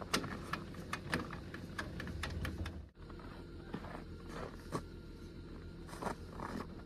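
Metal trailer hitch hardware and safety chains clinking and clanking in a quick series of sharp clicks, followed by a few scattered knocks and footsteps, over a steady low hum.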